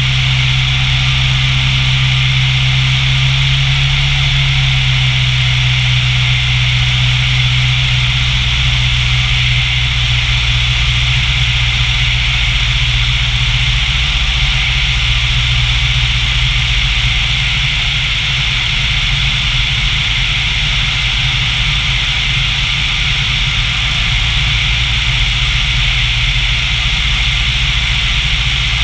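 Single-engine light aircraft's piston engine and propeller running steadily at reduced power on the landing approach, with a steady rushing hiss. The engine note steps down slightly about four to five seconds in.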